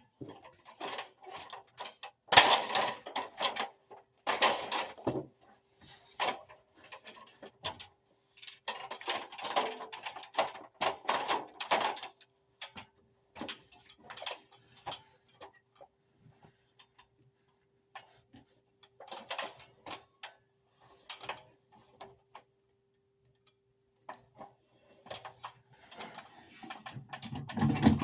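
Irregular clicks, taps and clatter of hand work on a furnace's parts and wiring, coming in clusters, loudest about two seconds in.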